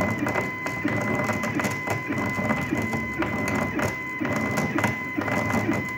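Diamond drag bit on a BobsCNC E4 CNC router scraping an etched line into glass: a harsh, gritty scratching full of small irregular clicks, with a steady high whine over it. It sounds like fingernails on a chalkboard magnified times 10.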